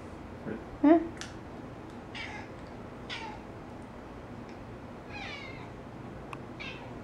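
Domestic tabby cat chirping at a laser dot on the ceiling: about six short, fluttering calls spread a second or so apart, the loudest and lowest about a second in.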